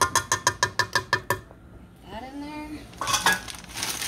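A measuring cup tapped rapidly against the rim of a stainless steel stand-mixer bowl, about a dozen quick ringing clinks in a second and a half, knocking out the last of the powdered sugar. Plastic bag crinkling follows about three seconds in.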